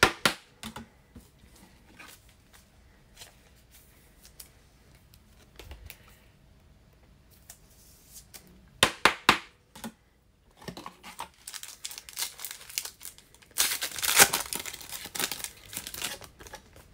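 Foil trading-card pack torn open, its wrapper crinkling loudly for a few seconds in the second half. Before that there are scattered sharp clicks and a short run of loud snaps from the cards and pack being handled.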